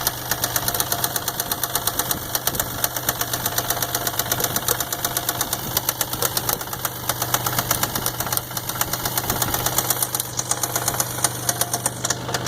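A 1999 Isuzu engine running with a steady, rapid, regular knock, several a second. The owner takes it for worn-out main or rod bearings.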